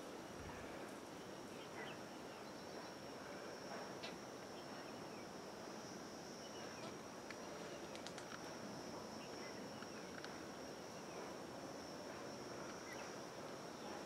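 Steady, high-pitched insect drone over a faint outdoor hiss, with a few faint, scattered ticks and short chirps.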